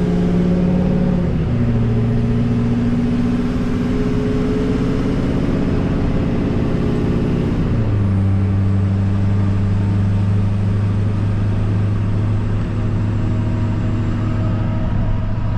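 Truck engine and road noise heard from inside the cab while driving, a steady drone. The engine's pitch steps down twice, about a second and a half in and again about eight seconds in, as the transmission shifts up.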